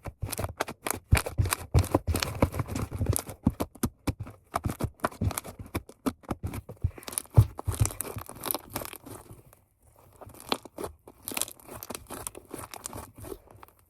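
Fluffy slime being stretched and squeezed by hand, giving dense, irregular crackling and popping as its air bubbles burst, with a short lull a little past the middle.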